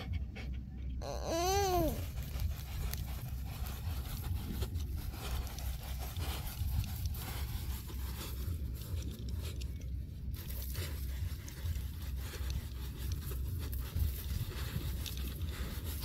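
A dachshund panting as it digs in loose beach sand, its paws scratching and throwing sand in a dense, irregular patter. A brief wavering whine about a second and a half in, over a steady low rumble.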